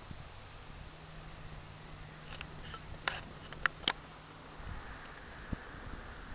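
Outdoor ambience of insects trilling steadily on a high note over a soft hiss, with a few short sharp clicks in the middle.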